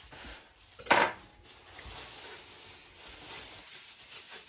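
A single clink of kitchen dishware about a second in, the loudest sound, followed by faint rustling and light knocks of handling.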